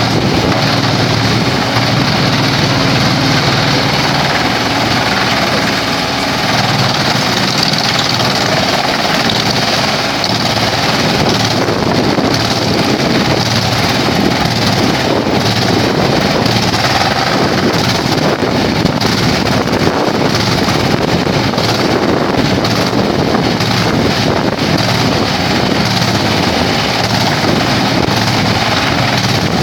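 Vantec PTF600x300 forestry wood chipper running, a loud, steady, dense mechanical din.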